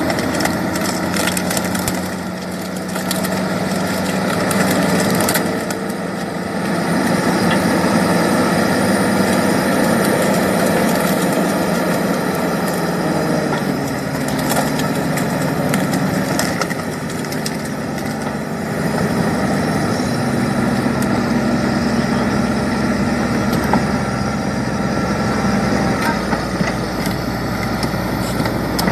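Bulldozer's diesel engine running under load, its note shifting up and down several times as the blade pushes a pile of caviar boxes, with scattered cracks and crunches of the boxes breaking.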